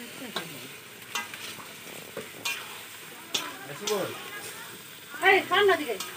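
A long metal spatula stirs and scrapes chicken and potato curry frying in a large aluminium pot over a wood fire. It clinks sharply against the pot about once a second over a steady sizzle. A brief voice near the end is the loudest moment.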